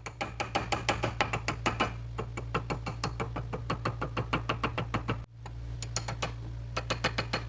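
Rapid, even tapping on a freshly soldered ring, about five taps a second, to round it out and bring it to size 9; the taps break off briefly about five seconds in. A steady low hum runs underneath.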